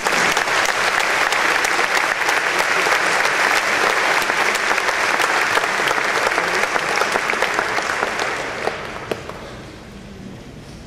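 A large audience applauding, the clapping dying away about nine seconds in.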